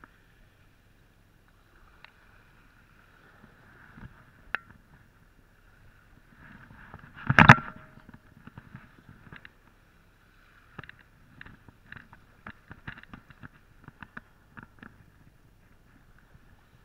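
Muffled handling noise on an action camera: one loud knock and rustle about halfway through as a rain-jacket sleeve swings past it, with scattered light taps and clicks before and after.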